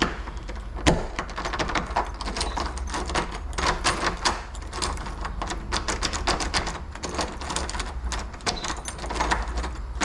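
Rapid, irregular clicking and clattering of small lock hardware being handled and fitted.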